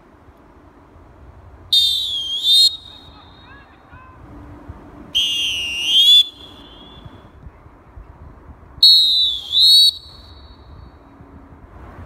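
Black plastic pealess referee whistle blown three times, each blast about a second long and shrill: a medium blast, a lower one, then a higher one.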